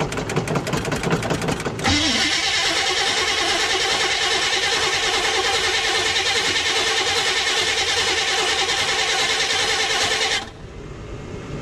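A 454 big-block V8 being cranked on its starter in a cold start, its choke not working. Even pulses of cranking give way about two seconds in to a louder, steady engine sound that drops off sharply near the end.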